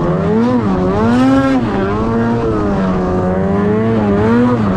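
Snowmobile two-stroke engine running under throttle, its pitch swelling up and dropping back several times as the throttle is worked.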